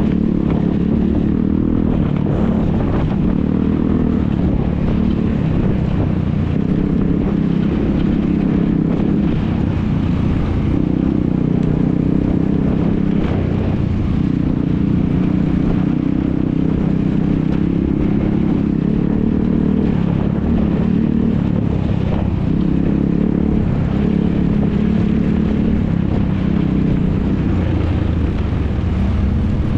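ATV engines running hard, their pitch rising and falling continuously as they rev up and down.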